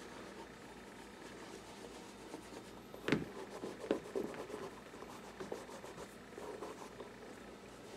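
Cloth rubbing on a leather shoe as a cream cleaner-conditioner is worked into the leather. About three seconds in there is a sharp knock as the shoe is set down on the table, followed by more soft rubbing and a few light taps.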